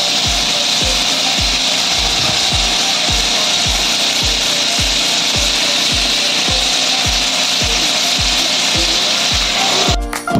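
Chicken pieces sizzling as they fry in oil in a wok: a steady hiss that stops shortly before the end. Under it runs background music with a steady thumping beat, about two and a half beats a second.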